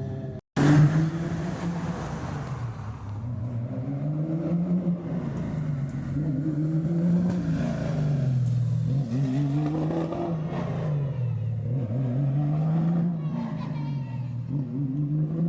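Rally car engine under hard driving, its pitch rising and falling over and over every couple of seconds. It starts abruptly about half a second in.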